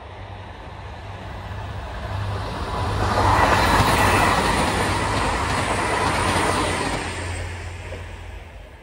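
A regional passenger train of red DB Regio coaches passing close by. Its wheel and rail noise builds up about three seconds in, holds for a few seconds, then fades away near the end.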